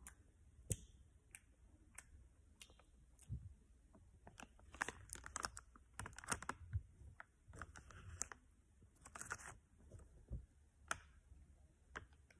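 Faint crinkling of a plastic candy bag and small clicks and mouth sounds as gummy worm candy is picked out and chewed, in short scattered bursts.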